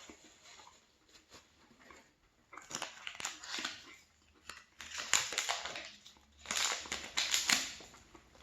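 Close-up chewing of a Milka Oreo Brownie chocolate bar, crunching the cookie pieces in three bursts.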